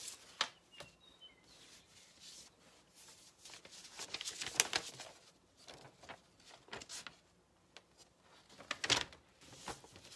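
Scattered soft clicks and rustles from handling close to the phone's microphone, louder twice, near the middle and near the end. A few short, faint, high chirps sound about a second in.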